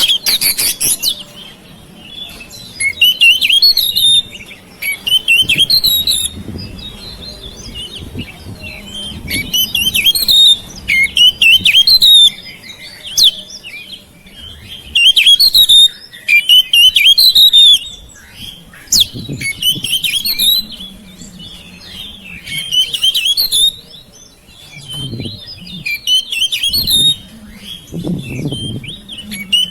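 Oriental magpie-robin (kacer) singing loud bouts of fast, varied chirps and whistled phrases, each a second or two long with short pauses between. A faint steady low hum runs underneath.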